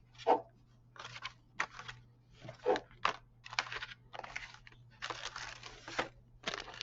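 Plastic parts bags crinkling and rustling as model kit parts are handled, in short irregular bursts with a denser stretch about five seconds in.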